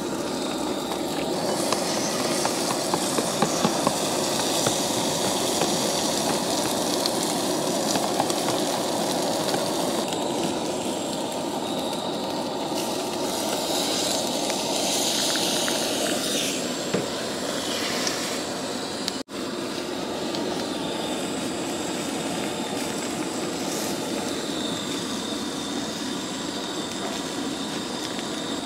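Beaten eggs sizzling in a hot cast-iron skillet on a propane camp stove, a steady hiss with the burner running beneath it, and a fork or spatula now and then working the eggs in the pan. The sound drops out for an instant about two-thirds of the way through.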